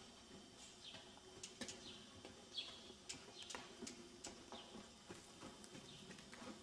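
Faint, irregular hoofbeats of a yearling Morgan–Quarter Horse filly moving loose over soft dirt arena footing, with small birds now and then giving short falling chirps.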